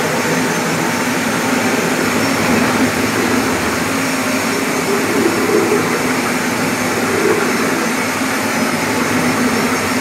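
Electric marble grinding and polishing machine running steadily on marble stone: a continuous loud machine noise with a steady hum underneath.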